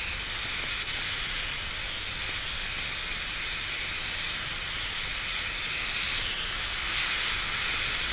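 RAF search-and-rescue helicopter running up on the pad: a steady engine whine over rushing rotor and engine noise, the whine rising slightly in pitch.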